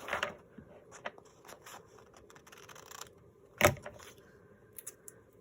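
Papers and craft materials being handled on a work table: short rustles and light taps and clicks, with one sharp knock about three and a half seconds in.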